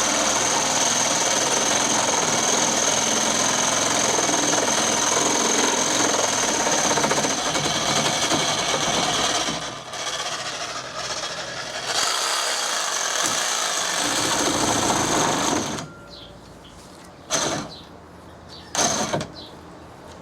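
Cordless reciprocating saw with an 8-inch wood blade cutting through treated pine decking board: it runs hard, eases off about ten seconds in, cuts again, then stops about sixteen seconds in, followed by two short bursts of the saw.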